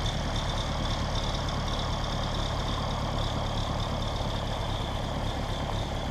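Vintage tractor engine idling steadily, with a constant high hum above it.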